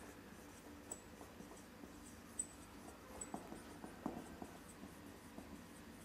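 Marker pen writing on a whiteboard: faint, irregular short strokes of handwriting, with a few brief high squeaks.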